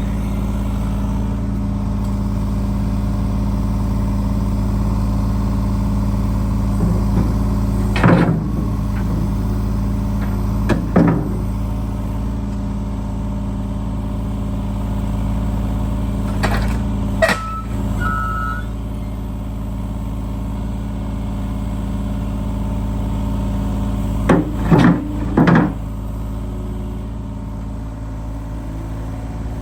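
Diesel engine of compact construction equipment running steadily under work, with sharp clanks and knocks rising above it about eight and eleven seconds in, twice around seventeen seconds, and three in quick succession near twenty-five seconds.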